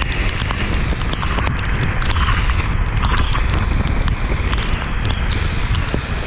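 Wind buffeting the microphone of a handlebar-mounted camera on an electric scooter riding fast in the rain, a heavy rumble under a swelling and fading hiss of wet tyres and rain, with many sharp little ticks throughout.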